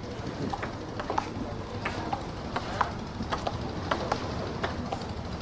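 Ping-pong rally: the ball clicking back and forth off the paddles and table, a sharp pock every quarter to half second.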